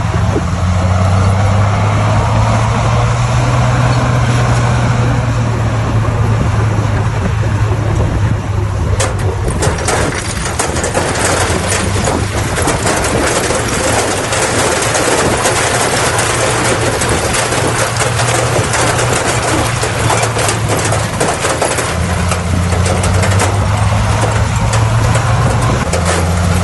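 Bulldozer's diesel engine running steadily under load. About nine seconds in a loud, dense clattering and scraping sets in over it as the machine works the stone, and the engine note comes through clearly again near the end.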